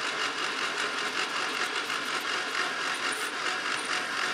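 Round-column mill drilling a hole through square bar stock: a twist drill cutting metal in a steady grind over the running spindle motor.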